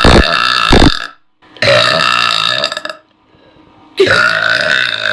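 A person burping loudly: three long burps in a row, each a little over a second, with short pauses between them.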